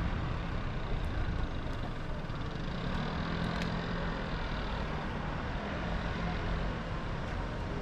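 Street ambience dominated by a motor vehicle running nearby: a steady low engine hum and rumble over general traffic noise, with a few faint ticks.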